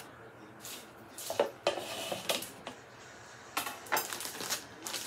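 Kitchen knife scraping and clinking against a plate as cooked chicken pieces are pushed off it into a salad bowl: a series of short metal-on-china clinks and scrapes.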